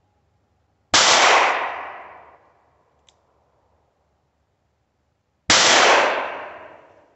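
Two shots from a Taurus 605 snub-nosed revolver firing .38 Special loads, about four and a half seconds apart. Each crack trails off over about a second and a half.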